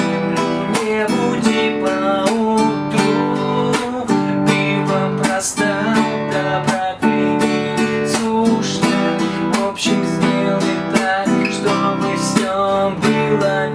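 Acoustic guitar strummed slowly through the chorus chords G, C, Em and D, in a down, up, muted strike, up pattern with each chord played twice. A man sings the chorus over it.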